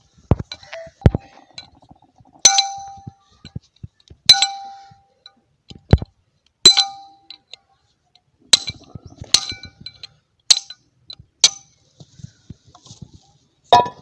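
Steel hammer striking the crankshaft and the bearing housing seized onto it on a 16 HP diesel engine, about ten metal-on-metal clangs a second or two apart, several ringing briefly. The engine seized from oil starvation after its oil pump failed.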